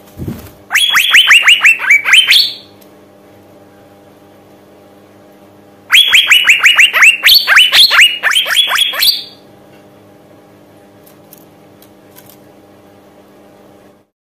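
Female Asian fairy-bluebird (cucak biru) calling in two loud bursts of rapid, sharply falling whistled notes, the second burst longer; this is the female's call used as a lure to set males singing. A brief low thump comes right at the start.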